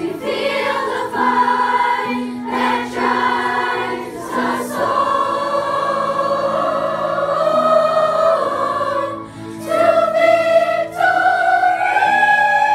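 A children's school choir singing a slow song, holding long notes that step up in pitch twice near the end.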